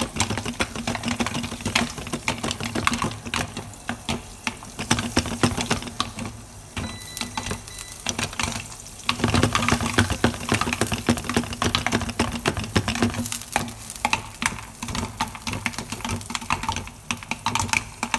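Popcorn kernels popping in butter and oil in a pot under a glass lid: a dense, rapid stream of sharp pops, with a steady low hum underneath.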